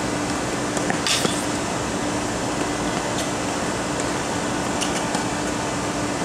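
Tennis rally on a hard court: a brief scuffing burst about a second in and a few faint sharp knocks of ball on racket, over a steady background hiss with a low hum.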